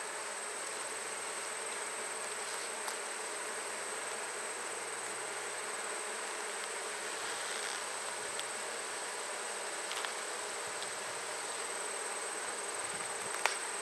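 A honey bee colony buzzing steadily around an open hive, with a few faint clicks near the end.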